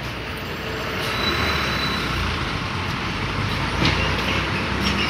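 Steady rushing street noise of distant road traffic, with wind rumbling on the phone's microphone. There is a single short click about four seconds in.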